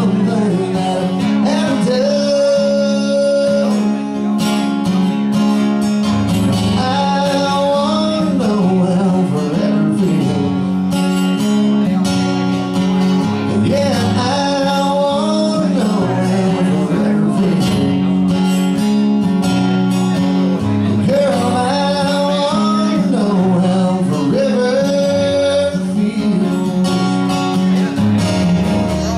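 A man singing a song with strummed acoustic guitar accompaniment, performed live; the sung melody continues without a break.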